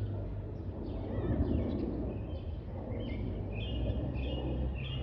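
Distant low rumble of a departing Boeing 737-800's CFM56 jet engines climbing out high overhead, with birds chirping: a few short falling chirps early, then higher trilled notes from about three seconds in.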